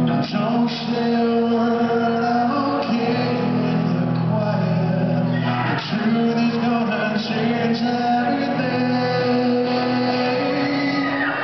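Live concert music in a large hall: a man singing over guitar.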